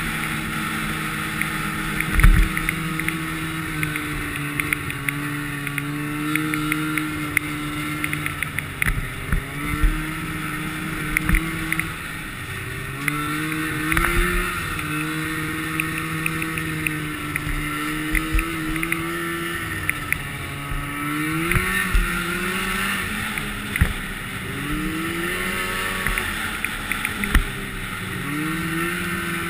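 Snowmobile engine running while riding a snow trail, heard from on board. Its pitch rises and falls again and again as the throttle is worked, with sharp knocks from the sled jolting over bumps, the loudest about two seconds in.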